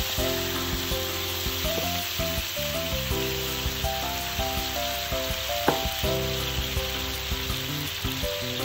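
Ostrich meat pieces sizzling in hot sesame oil in a frying pan while the seasonings for teriyaki sauce are added. A simple background melody plays under the sizzling.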